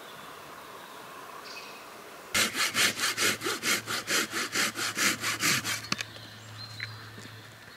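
Hand saw cutting through wood in quick back-and-forth strokes, about four a second. It starts a little over two seconds in and stops after about three and a half seconds.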